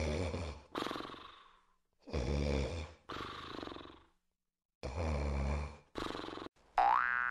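A man snoring in his sleep: three long snores about two and a half seconds apart, each followed by a fainter breath out. Near the end a cartoon 'boing' sound effect, its pitch sliding up and down.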